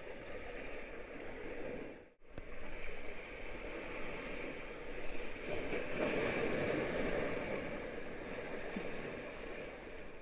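Sea surf washing against rocks, a steady rushing that swells louder around the middle. The sound cuts out for an instant about two seconds in.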